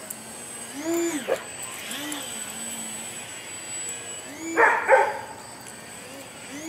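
A dog barking and whining excitedly as it chases a low-flying model plane: short whines that rise and fall in pitch, a sharp bark about a second in, and a loud double bark a little past the middle.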